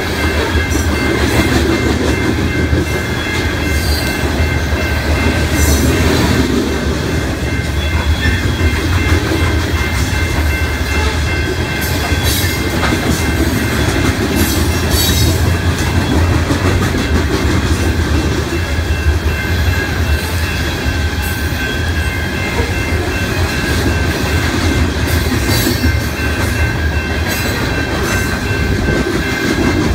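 Loaded BNSF coal train's cars rolling past at close range: a steady heavy rumble, with the wheels clicking over the rail joints.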